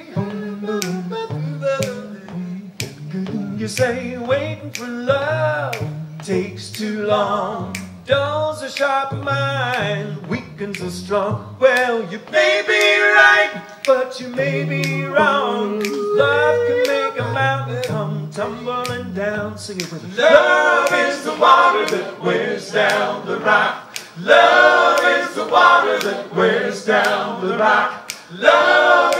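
Male vocal trio singing in close a cappella harmony, with a low bass line under the melody, over a steady beat of finger snaps. The harmony swells fuller and louder about two-thirds of the way through.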